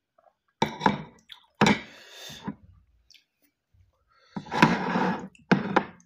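Heavy dishes knocked and set down on a table: a few sharp knocks in the first two seconds, then a longer clatter just before the end.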